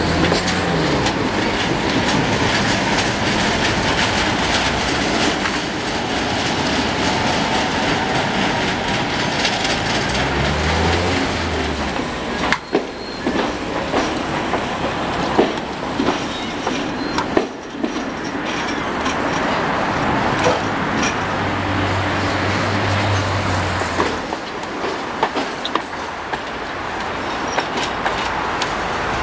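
Tatra trams running on street and loop track: steady rolling noise with the wheels clicking and knocking over rail joints, mostly in the middle, and brief wheel squeal. A low motor hum rises about ten seconds in and sounds again for a few seconds near the end.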